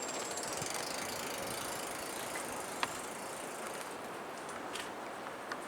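Steady, fairly quiet outdoor street noise with a few light sharp clicks, the clearest about three seconds in.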